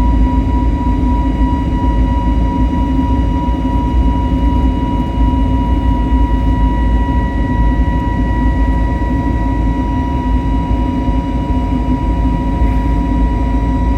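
Cabin noise aboard an Airbus A320neo climbing after take-off: a steady low rumble of engines and airflow, with a constant high whine from the engines.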